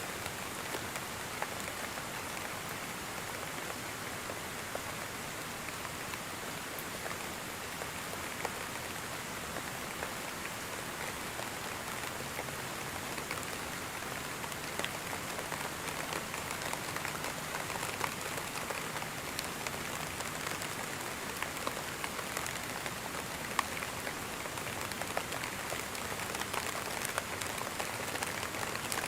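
Steady rain falling: a constant even hiss with scattered sharper ticks of individual drops.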